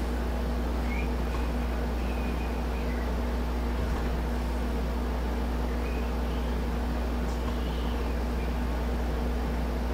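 A steady low machine hum with a constant drone, like a running motor or fan, and a few faint high chirps now and then.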